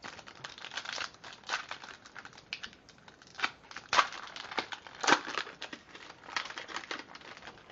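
A foil trading-card pack wrapper crinkling and crackling as it is handled and torn open by hand. There are irregular rustles throughout, with louder crackles about four and five seconds in.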